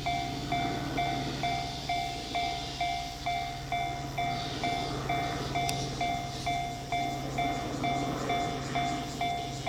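Japanese railway level-crossing alarm bell ringing its steady "kan-kan" at about two strikes a second, while a train runs past with a rumbling rush of wheels.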